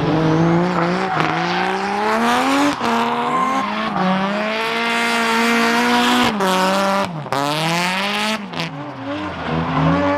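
Drift car's turbocharged SR20DET four-cylinder engine revving hard, its pitch climbing and falling with sharp drops several times as the driver lifts and gets back on the throttle, with tyres squealing underneath.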